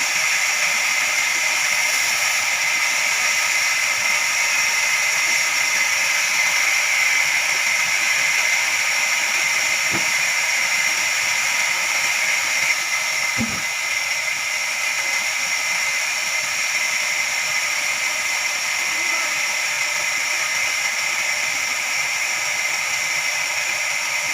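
Band sawmill running, a steady high-pitched whine and hiss of the blade working through a log, with two soft knocks about ten and thirteen seconds in.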